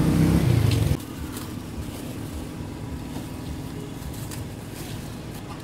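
Vehicle engine idling with a steady low hum that cuts off abruptly about a second in. A quieter background with a few faint light ticks follows.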